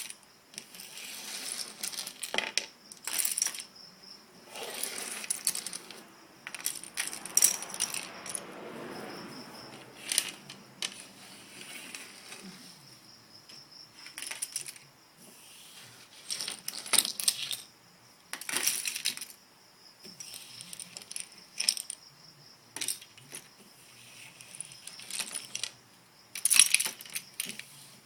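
Plastic Lego bricks clicking and clattering as they are handled, in irregular clusters of small sharp clicks, with a longer stretch of rummaging through pieces a few seconds in.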